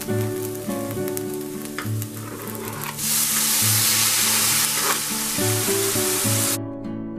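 Chopped onion sizzling in hot oil in a stainless steel frying pan, being stirred. About three seconds in, chopped tomato is slid into the pan and the sizzle gets much louder, then cuts off suddenly near the end.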